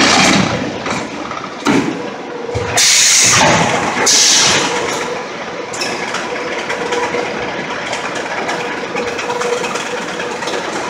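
Concrete block production line running: the gantry stacker's gripper moving down over a stack of production boards, with steady machine noise and a faint steady hum. Two short bursts of hiss come about three and four seconds in.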